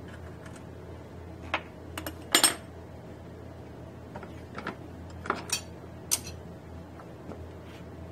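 Hand tools and a small metal part clinking against a bench vise and the workbench: a scatter of short metallic clinks and clanks, the loudest about two and a half seconds in, over a low steady hum.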